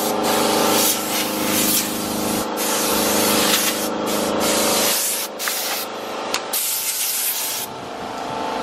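Power tool grinding into Cuban mahogany: a steady motor whine under a loud rasping that comes and goes as the tool bites the wood. Near the end the rasping stops while the motor keeps running.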